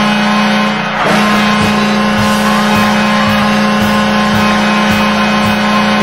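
Washington Capitals' arena goal horn blowing: a long, low, steady blast that breaks off briefly about a second in and then sounds again for about five seconds, with a thumping beat underneath.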